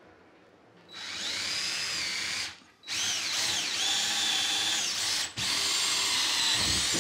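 Cordless drill boring a pilot hole up through the ceiling drywall into a joist. The motor whine starts about a second in, stops briefly twice, and rises and dips in pitch as the bit bites.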